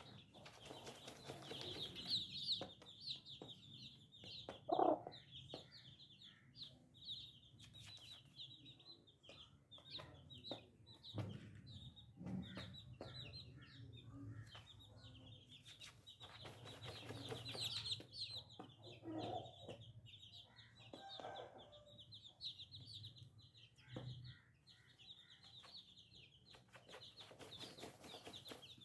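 A brood of baby chicks peeping continuously in rapid, high-pitched cheeps, with a hen's lower clucks breaking in now and then, the loudest about five seconds in.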